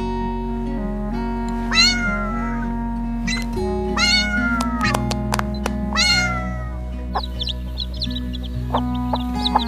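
A cat meowing three times, about two seconds apart, over steady background music.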